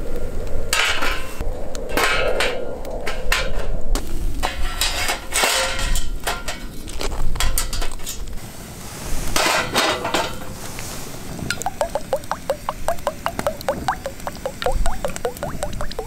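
Cooking utensils clinking and tapping against bowls and dishes while food is being prepared, irregular at first. In the last few seconds it turns into a run of quick, even taps, about four or five a second.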